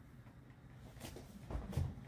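Hands packing white fibre wadding into an MDF subwoofer enclosure through the driver hole: faint soft rustling and squishing, with two dull thumps about a second and a half in.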